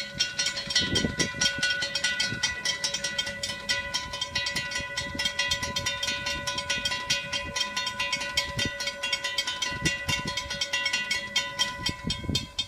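Railroad grade-crossing warning bells ringing in rapid, evenly spaced strikes as the crossing activates and the gates lower for an approaching train.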